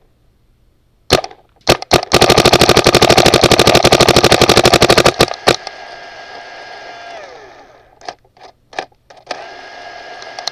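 Dye DM6 electronic paintball marker firing: a few single shots, then a rapid string of shots lasting about three seconds, then a few more single shots. A steady whirring runs between the later shots.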